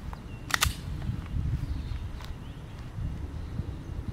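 Outdoor wind rumbling on the microphone, with a few faint clicks.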